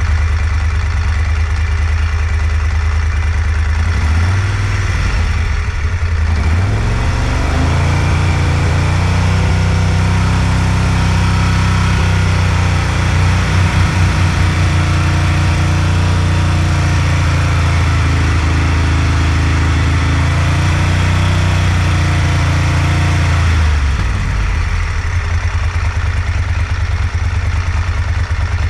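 Moto Guzzi Griso 1200 8V's transverse 90-degree V-twin running at idle, then revving up over a few seconds to around 4,000 rpm. It holds there steadily for about fifteen seconds while the throttle bodies are balanced, then drops back to idle near the end.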